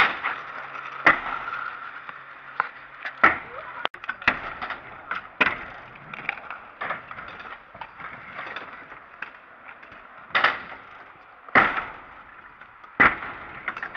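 Stunt scooter wheels rolling on concrete, broken by about eight sharp clacks and slams from decks and wheels hitting the ground and box as bar whip drop attempts land, the loudest three coming close together near the end.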